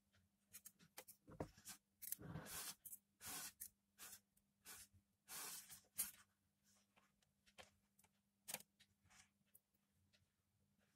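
Faint, irregular rustling, scratching and clicking of fingers handling and twisting thin earphone wires and a small earphone speaker, in short scattered bursts over a faint steady hum.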